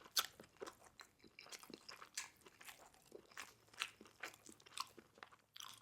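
Close-miked crunching and chewing of crispy Korean fried chicken, most likely its skin, as a string of sharp, irregular crackles several times a second.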